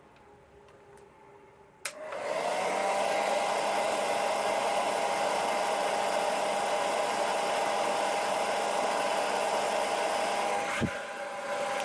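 Hand-held blow dryer switched on with a click about two seconds in, its motor whine rising briefly as it spins up, then running steadily on the warm, low setting. Near the end the pitch falls and the sound drops away as it winds down.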